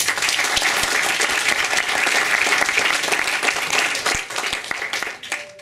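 Audience applauding: many hands clapping in a dense patter that tails off near the end.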